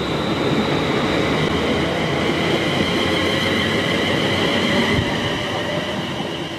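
London Midland Class 350 Desiro electric multiple unit running along the platform, wheels rumbling on the rails with a steady high whine, fading near the end as it moves away.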